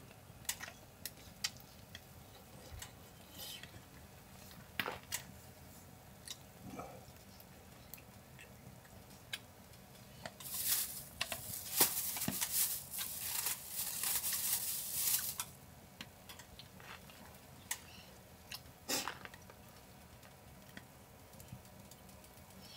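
Scattered small clicks and knocks of objects being handled, with about five seconds of rustling or crinkling midway.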